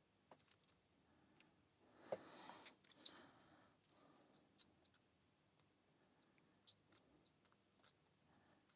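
Faint, scattered metallic clicks and light scraping of a lock pick and tension tool working the pins inside a cheap pin-tumbler padlock, with a brief louder stretch of scraping and a couple of sharper clicks about two seconds in.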